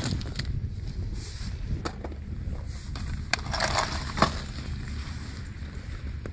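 A waterproof roll-top backpack set down on beach pebbles and opened by hand: a knock as it lands, then a few sharp clicks of buckles and a short crinkling rustle of the bag's stiff fabric about three and a half seconds in. A low, steady rumble of wind on the microphone lies under it.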